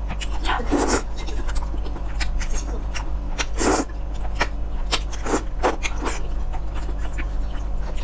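Close-up mouth sounds of eating thick spicy rice noodles: two longer slurps, about a second in and near the middle, with short wet chewing and mouth clicks between, over a steady low hum.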